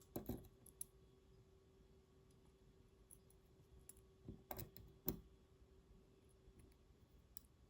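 Faint, scattered clicks and taps of small metal lock parts being handled while side pins go into an Assa Twin 6000 high-security lock. A couple of clicks come right at the start, then a small cluster about four and a half seconds in and a sharper click about five seconds in.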